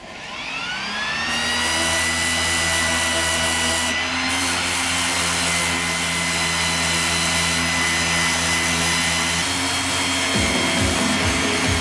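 Electric orbital sander starting up, its motor whine rising in pitch over the first second or so, then running steadily at a very low speed setting as the edge of its pad lightly sands raised epoxy lumps flat. Near the end a low, rapid pulsing joins the whine.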